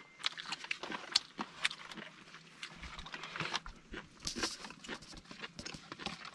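Irregular soft clicks and crinkles of a shared meal eaten by hand: fingers working in plastic bags and foam food boxes.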